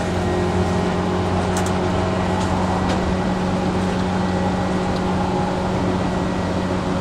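Train running: a steady low electric hum and rumble, with a few faint clicks.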